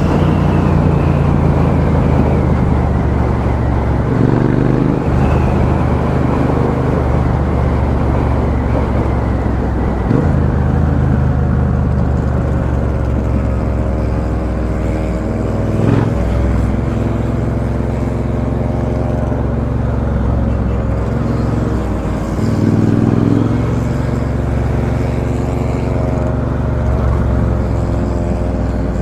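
2017 Triumph Bonneville T120 Black's 1200 cc parallel-twin engine running through a Customer aftermarket straight-cut exhaust while the bike is ridden, its note rising and falling a few times with the throttle, with a brief knock about halfway through. Heard through a microphone inside the rider's helmet.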